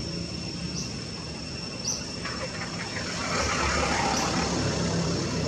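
Outdoor ambience: a steady high-pitched insect drone with a couple of short bird-like chirps. A broad rush of noise swells in about two seconds in and holds.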